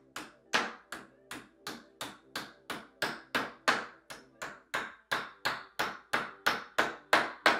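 Claw hammer tapping white plastic pegs into the edge of an IKEA Alex drawer-unit panel: a steady run of about twenty light strikes, roughly three a second.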